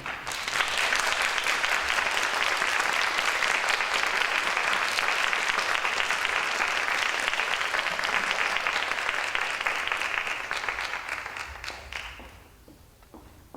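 Audience applauding steadily, then dying away near the end into a few scattered claps.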